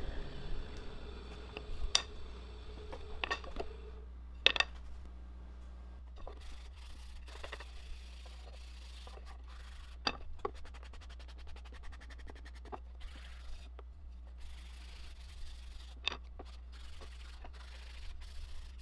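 Hand-sanding the freshly routed edges of laminated wooden canoe stems with a sanding pad: repeated rubbing strokes, with a few sharp knocks as the pieces are handled on the router table, over a steady low hum.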